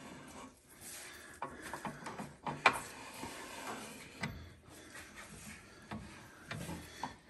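Greased axle shaft of a golf cart's Spicer axle being slid slowly into the axle tube through the new seal and bearing: quiet metal rubbing and scraping with a few sharp clicks, the loudest a little under three seconds in.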